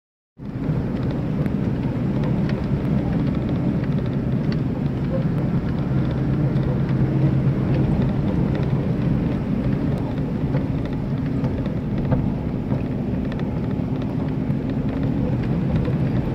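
Vehicle engine running steadily, heard from inside the cab, with scattered small clicks and rattles as it drives over a rough dirt track.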